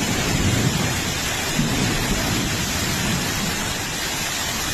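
Heavy downpour during a storm: a steady, dense hiss of rain with low rumbling underneath.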